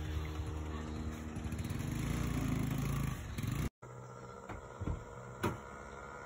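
A motor vehicle's engine running close by, growing louder over the first three seconds, its pitch dropping as it passes. It cuts off abruptly about three and a half seconds in, leaving a quieter open-air background with two short knocks about five seconds in.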